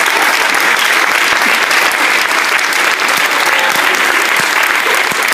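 Audience applauding steadily after a song, dense clapping with no music.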